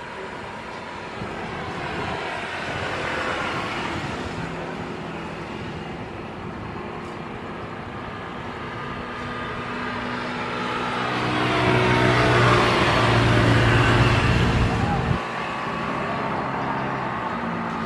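Airbus KC-30A tanker (A330-200 MRTT) taxiing on its two General Electric CF6-80E1 turbofans: a steady jet whine with a low rumble. It swells to its loudest about twelve to fourteen seconds in, then the rumble drops off suddenly about fifteen seconds in.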